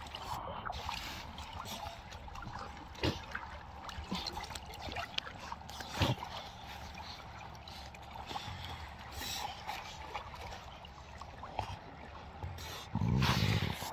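Water lapping and splashing as fur seals swim and surface close by, with a few short sharp splashes. Near the end there is a louder rushing burst lasting about a second.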